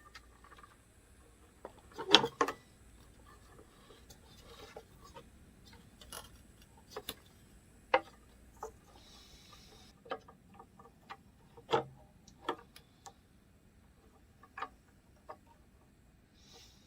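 Scattered clicks and knocks of metal parts and hand tools being handled while the belt and covers go back onto a Hilti 700 concrete saw, a few seconds apart, the loudest cluster about two seconds in.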